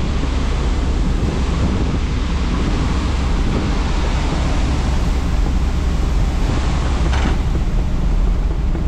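Heard from inside the cab of a tracked excavator travelling in slow track speed: the diesel engine runs with a steady low drone while strong wind rushes and buffets over the cab and its unlatched sunroof. A short rushing burst comes about seven seconds in.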